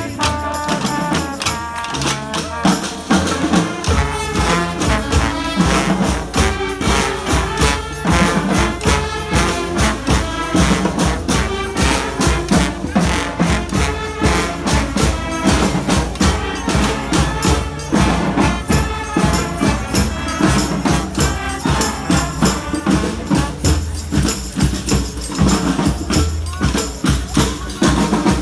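Street band of brass, winds and percussion playing a salsa tune live: horn lines over a steady percussion beat, with deep low notes joining about four seconds in.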